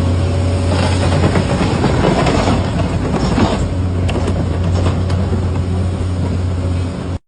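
Hitachi EX1200 crawler excavator's diesel engine running with a steady low drone while its ripper tooth tears through hard ground. Scraping and crunching from about one to four seconds in, with a few sharp cracks after.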